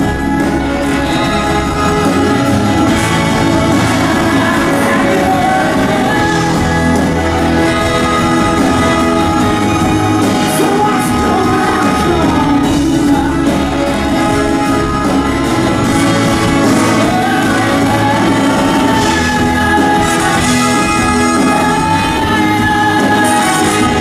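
Live acoustic band music in a hall: strummed acoustic guitar with violins and cello playing, and a male voice singing, at times near a shout.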